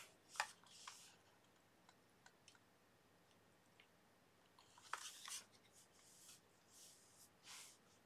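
Mostly quiet, with a few faint clicks and rustles from hands handling a small toy DC motor and a hot glue gun: one sharp click about half a second in, then a cluster of handling noises about five seconds in and again near the end.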